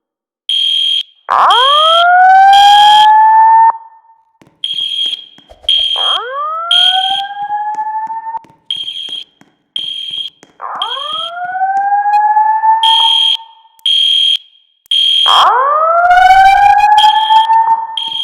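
Fire alarm evacuation signals: a rising whoop tone sounds four times, each sweep about two and a half seconds long. Over it, high-pitched horn beeps come in repeating groups of three with a pause after each group, the temporal-three evacuation code.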